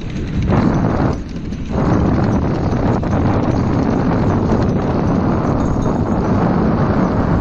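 Wheels of a dog-drawn rig rolling fast over the boards of a wooden bridge deck and then onto a dirt trail: a loud, dense rattling rumble. It dips briefly twice in the first two seconds, then runs on steadily.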